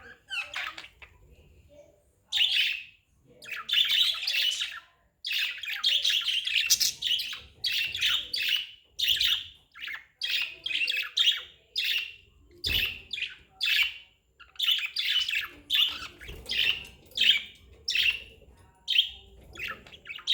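Budgerigars chirping and chattering: a quick string of short, high chirps, one or two a second, with a soft thump about two-thirds of the way through.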